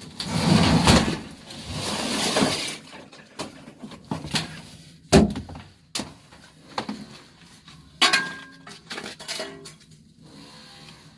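Scrap being handled and loaded: a loud rattling clatter over the first few seconds, then separate sharp clinks and knocks, the loudest about five seconds in.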